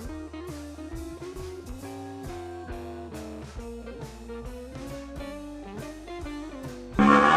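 Background music: plucked guitar notes over a drum beat in a bluesy style. Near the end a much louder, pitched animal call cuts in suddenly.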